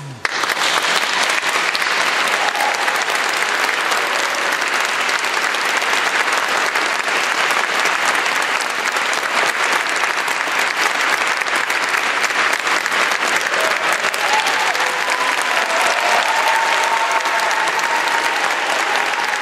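Audience applauding steadily, starting just as the choir's last note stops.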